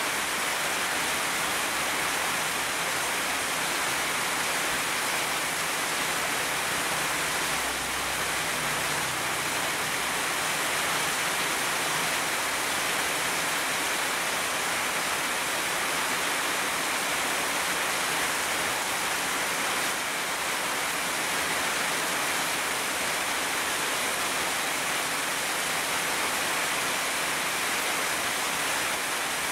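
Heavy rain pouring steadily down on tree leaves, an even hiss. A faint low rumble comes in briefly about eight seconds in.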